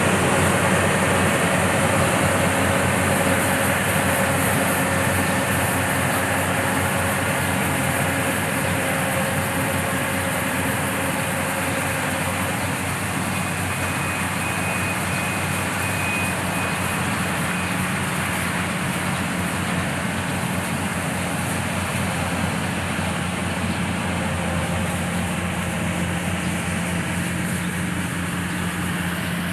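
Rice combine harvester's engine running steadily with a constant low hum, growing slightly fainter over the stretch.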